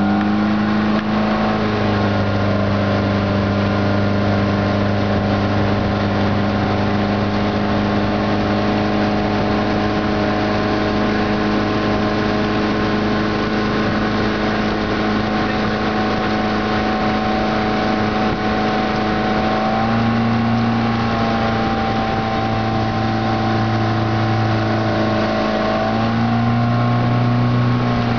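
Motorboat engine running steadily at towing speed over the rush of its churning wake. The engine's pitch rises a little about two-thirds of the way through, and again near the end.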